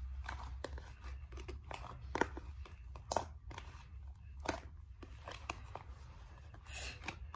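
Thin plastic tub of slime handled and squeezed: irregular crackles and clicks, with a few sharper clicks about two, three and four and a half seconds in.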